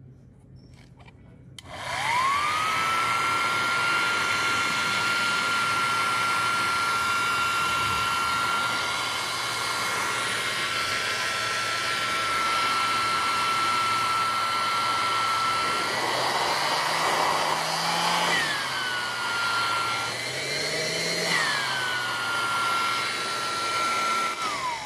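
DIY blower fan: a 775 DC motor spinning a centrifugal impeller in a PVC housing, switched on about two seconds in and spinning up fast to a steady high whine with a rush of air. Twice in the second half the whine briefly jumps higher in pitch and settles back, and right at the end it begins to wind down.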